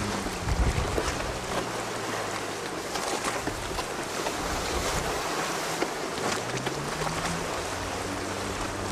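Wind buffeting the microphone over surf on the shore: a steady rushing noise with a few gusty thumps in the first second. About six seconds in, a low hum comes in, rises in pitch and then holds steady.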